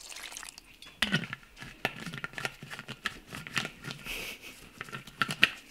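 Irregular rustling with light clicks and taps as things are handled by hand, starting about a second in.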